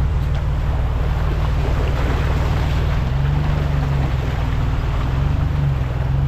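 Vehicle on the move: a steady low engine and road rumble under an even hiss of tyre and wind noise.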